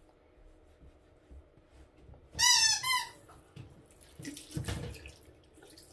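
Two loud, short squeaks about two seconds in, then a bathroom sink tap running, with water splashing into the basin.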